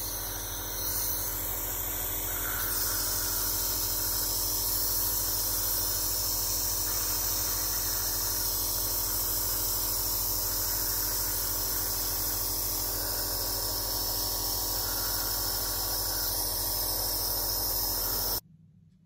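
Compressor nebulizer running steadily: a motor hum with a high hiss of air and medicine mist through the mask. It stops abruptly near the end.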